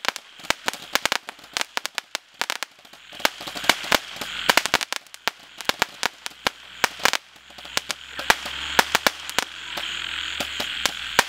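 Red Lantern RL6021 'Dodge This' multi-shot Roman candle cake firing rapidly: sharp reports popping several times a second over a hiss of comet tails, thinning out near the end as the cake finishes.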